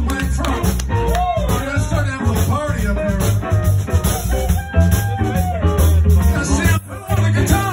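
Live electric blues band playing loudly: electric guitar, bass and drums, with a man singing into a microphone over the band.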